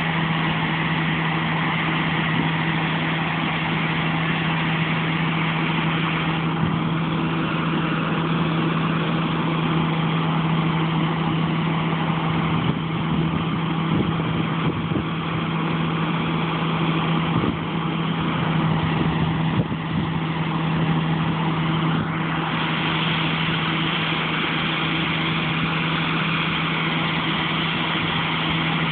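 Diesel engine of heavy harvest machinery running steadily at a constant speed, a continuous hum under a dense mechanical rush, with small shifts in the upper noise about a quarter and three quarters of the way through.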